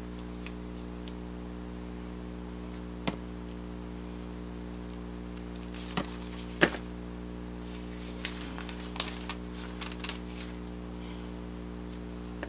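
Scattered sharp taps and clicks of hands handling craft foam and paper templates on a cutting mat, the loudest about halfway through, over a steady electrical hum.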